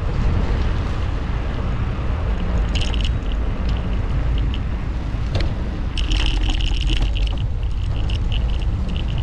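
Wind rumbling steadily on the microphone of a bicycle-ride recording while riding, with short high-pitched chirps coming and going from about three seconds in.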